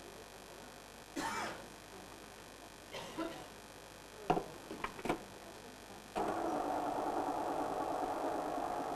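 A few clinks and knocks of a bowl and utensils being handled, then an electric stand mixer switched on about six seconds in, its motor running steadily.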